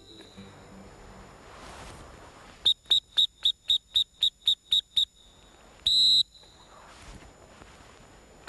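Dog-training whistle: a rapid run of about a dozen short toots over two seconds, then a single long blast about 6 s in. These are whistle commands to a Labrador retriever hunting for a downed duck, in the usual retriever code of repeated toots to call her in and one long blast to stop and sit.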